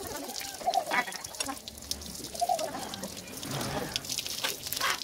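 Water from a garden hose splashing and dripping onto a wet dog and a wooden table, with a few short animal calls over it.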